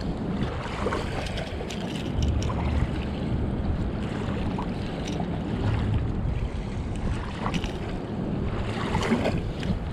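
Wind rumbling on the microphone, with scattered small clicks and scrapes as fishing pliers work a lure free from a snook's jaw.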